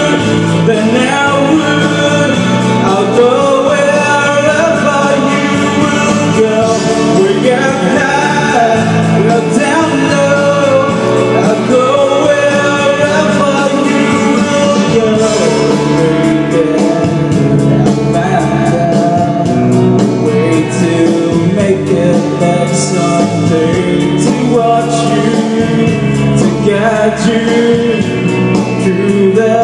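A man singing a song into a microphone, amplified over instrumental backing music with a steady bass line.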